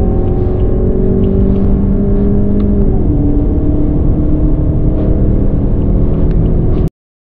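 Car engine pulling hard under full acceleration, heard from inside the cabin, its note rising slowly. The note changes about three seconds in, and the sound cuts off suddenly near the end.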